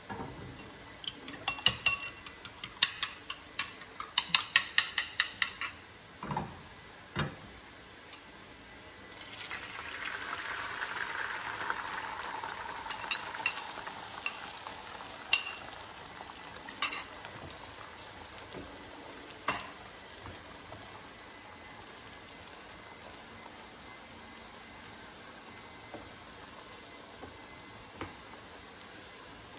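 A utensil beating eggs in a ceramic bowl, quick clinking strokes about three a second for several seconds, then a couple of knocks. About nine seconds in, the beaten egg hits a hot nonstick frying pan and sizzles, with a few sharp clinks, and the sizzle settles to a faint steady frying.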